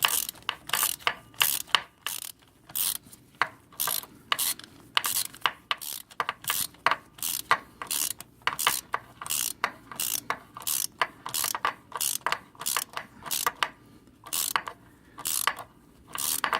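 Hand ratchet clicking in quick, even back-and-forth strokes as it runs new E12 Torx oil pan bolts up snug on a BMW 330i's oil pan.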